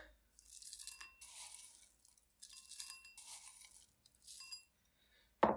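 Dry granola scooped by hand from a ceramic bowl and sprinkled onto yoghurt, rustling with light clinks, three times in a row.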